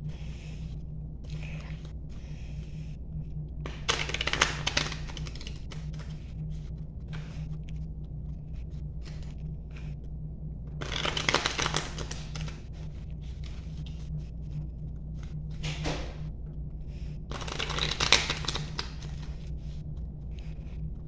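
A tarot deck being shuffled by hand in four short bursts of card rustling, the longest about a second, over a steady low hum.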